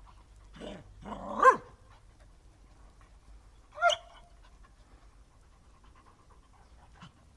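Dogs barking and yelping in rough play: a short yelp, then a louder, longer bark that rises and falls in pitch about a second in, and one sharp bark near four seconds.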